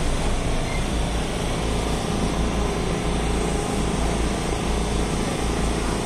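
Madrid Metro Serie 5500 train running, heard from inside the car: a steady low rumble with running noise.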